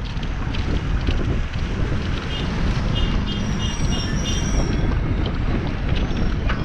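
Wind buffeting the microphone of a camera on a moving bicycle, a steady low rumble. Around the middle a short run of about half a dozen high chirps cuts through.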